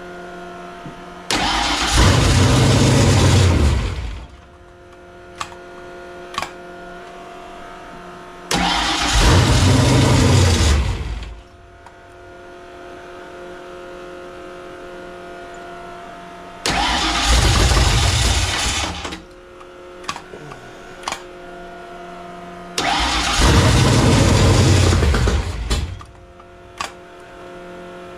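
Fox-body Mustang engine on a Holley carburettor firing up four times, each time running for two or three seconds and then dying. It fires but won't stay running or idle, which the owner puts down to a carburettor problem or a large vacuum leak.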